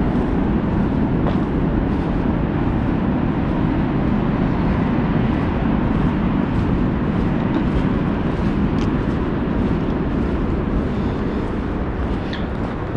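Steady low rushing outdoor noise as loud as the speech around it, with faint ticks of footsteps on the dirt trail about every second.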